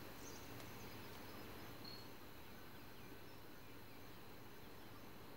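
Faint outdoor nature ambience: a steady low hiss with a few brief, high chirps about two to three seconds in.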